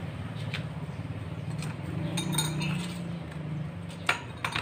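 Metal pipe clinking and knocking a few times against a concrete floor as it is turned and shifted by hand, with two sharper knocks near the end. A steady low hum runs underneath.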